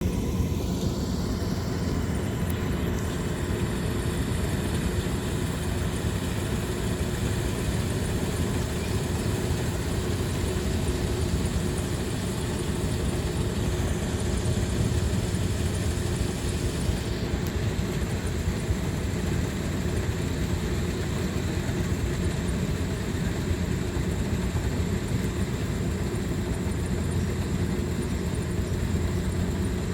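Engine of a farm harvesting machine running steadily at a constant speed.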